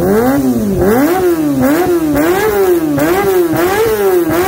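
Kawasaki ZX-25R's four-cylinder engine being revved up and down over and over at high revs, about three throttle blips every two seconds, as a test after its service and tune-up.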